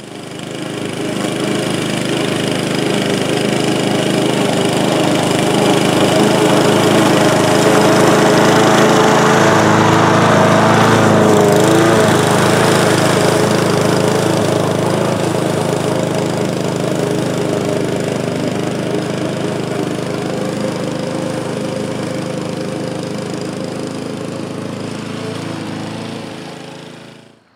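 A walk-behind rotary lawn mower's Honda engine running steadily at mowing speed while it cuts grass. The engine note wavers briefly near the middle and grows slightly quieter toward the end, then cuts off abruptly.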